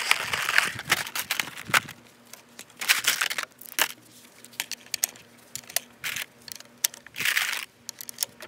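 Loose 5.45x39mm cartridges clicking and rattling against each other as a gloved hand picks them out of a clear plastic ammo box, with irregular clicks and short bursts of plastic crinkling and rustling.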